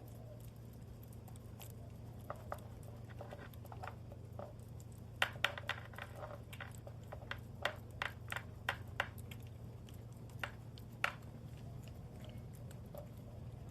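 A cat eating wet food: irregular chewing clicks and smacks, coming thickest in the middle, over a steady low hum.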